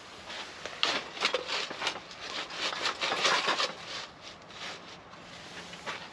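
Irregular rustling with light knocks and scrapes, busiest in the middle of the stretch and thinning out toward the end.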